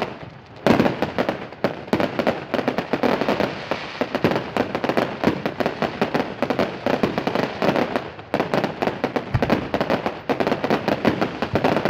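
Fireworks going off in quick succession: a dense, continuous run of sharp bangs and cracks, several a second, pausing briefly just after the start and again about eight seconds in.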